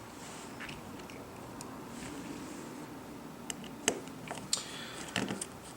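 Faint, small sharp clicks and light handling noises of tiny metal tools and parts, a few clicks in the second half, as small screws are worked out of an iPhone 6's logic-board shield.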